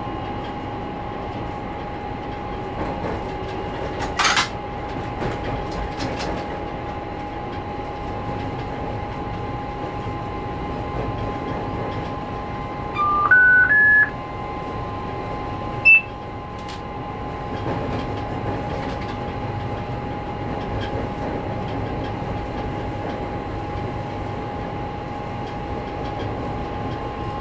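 Diesel locomotive running under way, heard in the cab as a steady rumble with a steady whine over it. About four seconds in there is a short hiss. About 13 seconds in a three-note rising electronic chime sounds from the cab equipment, and a short high beep with a click follows about two seconds later.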